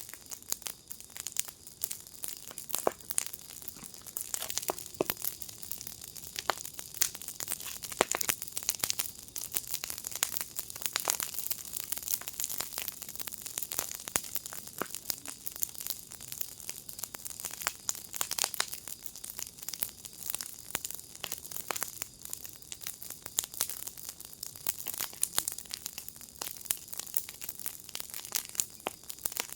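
Wood fire in a fire pit crackling, with dense, irregular pops and snaps over a steady hiss.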